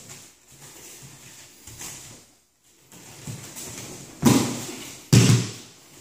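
A person is thrown down onto padded martial-arts mats. Two heavy thuds about a second apart come as his body and hands hit the mat, with quieter scuffing of bare feet on the mat before them.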